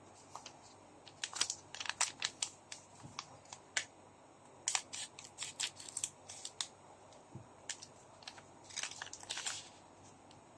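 Trading-card pack wrappers and cards being handled: sharp crinkles and clicks in three clusters, starting about a second in, again around five seconds in, and near nine seconds.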